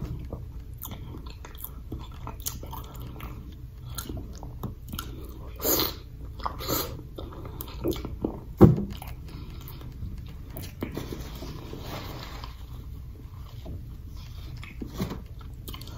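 A person chewing and smacking her lips while eating seafood boil: wet mouth sounds with scattered short smacks, a few sharper ones around six and nine seconds in.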